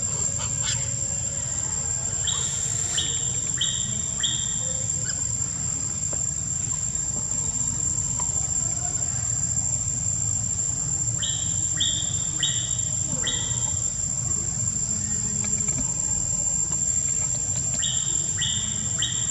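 Outdoor animal ambience: a steady high-pitched insect drone over a low rumble, with a call of four short high chirps about half a second apart repeated three times.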